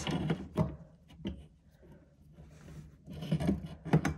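Pliers turning the new dishwasher heating element's locking nut about half a turn beneath the tub: scattered small clicks and scraping rustles, with a sharper knock near the end.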